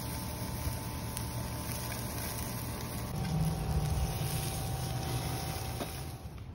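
Wind buffeting the microphone outdoors: a steady low rumble with a faint hiss, swelling a little about three seconds in.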